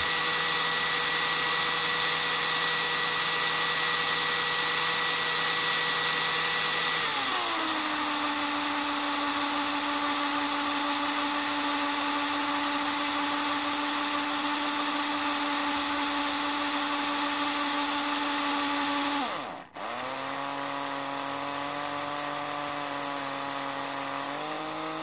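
Electric drill with a 2 mm bit boring into a padlock body to reach the shackle retainer pin, motor running with a steady whine. Its pitch drops about seven seconds in and stays lower; near the end it stops briefly, starts again, then stops.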